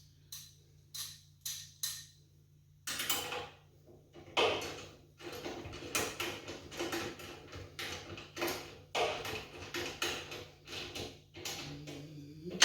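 Ratchet and socket working a 13 mm bolt and lock nut: a few separate metal clicks at first, then, from about three seconds in, a long run of quick repeated ratcheting clicks and scrapes.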